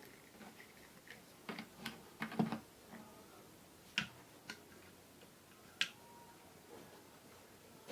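Irregular light clicks and taps, a cluster of them about two seconds in, then a few single sharp clicks.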